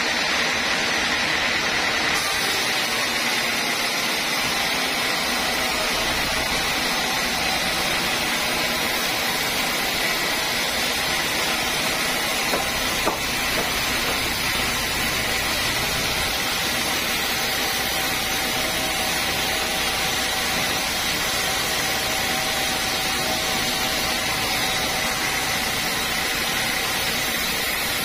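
Vertical band sawmill running steadily: a constant rushing noise with a high, steady whine.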